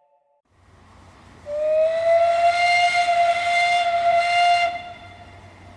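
Train whistle blowing one long blast of about three seconds, sliding slightly up in pitch as it starts, over a steady hiss; it cuts off near the end, leaving a faint hiss and rumble.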